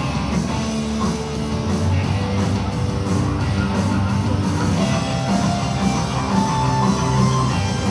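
Rock music with electric guitar and drums, playing loudly and steadily.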